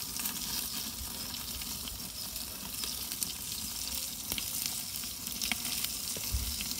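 Ribeye steak searing on a cast-iron Grizzler plate inside a propane Ooni Koda 16 pizza oven. It gives a steady sizzle with scattered pops and crackles, over a low rumble, as the fat flares up in the flame.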